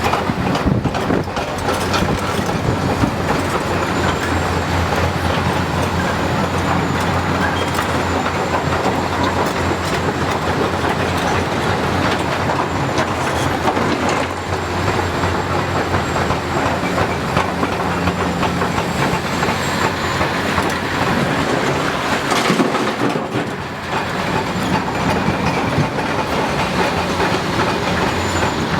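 Hitachi 330 hydraulic excavator working rock: its diesel engine runs steadily under load amid continual clanking and rattling of steel on stone. The sound dips briefly about three-quarters of the way through.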